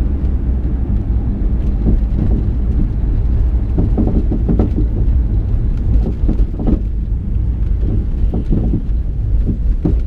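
2012 Ford Mustang GT driving over bumps: a steady low rumble of road and engine, with repeated knocks from the rear suspension, clustered about four seconds in and again around seven and eight and a half seconds. The knocking comes from worn rear sway bar bushings.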